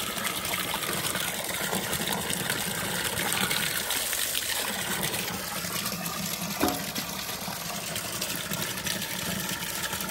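A stream of water pouring and splashing steadily into a plastic cooler as chopped venison ribs are rinsed in it by hand. A single sharp knock about two-thirds of the way through.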